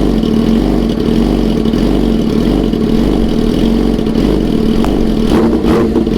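Yamaha R6 600 cc inline-four motorcycle idling steadily through a loud aftermarket exhaust.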